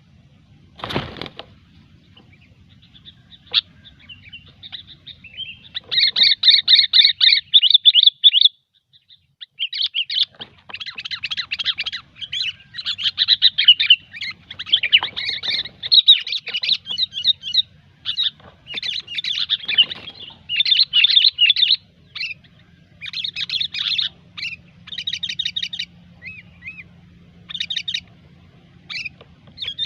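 Sooty-headed bulbul (kutilang) in full chattering song, rapid bursts of bubbly notes coming almost without pause from about six seconds in. A short loud thump sounds about a second in.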